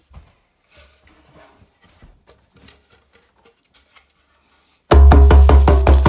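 Faint light knocks and handling noise, then about five seconds in a djembe drum is struck loudly and fast, about five strokes a second, each with a deep booming low note.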